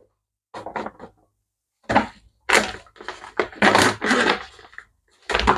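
A bag of wheat flour crinkling and rustling in several bursts as flour is poured from it into a stainless steel bowl.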